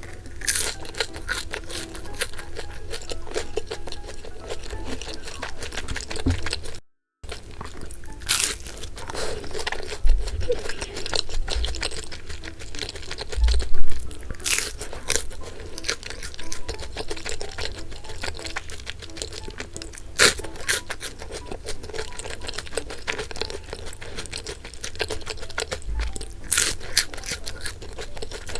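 Bungeoppang, fish-shaped pastries filled with red bean and custard cream, being bitten, pulled apart and chewed. The crisp crust gives irregular crunchy bites, heard over light background music.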